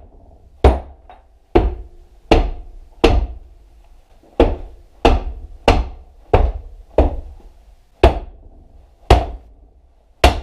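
About a dozen hard hammer blows on a Honda Magna V4 motorcycle engine, each with a short metallic ring, struck to knock the unbolted crankcase halves apart.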